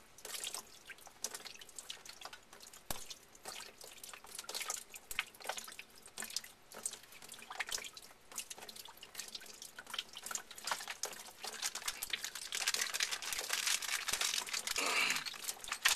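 Water dripping and trickling from a cut 3/4-inch PEX hot water line: quick, irregular drips throughout, heavier for a few seconds near the end. It is the water left in the shut-off line draining out.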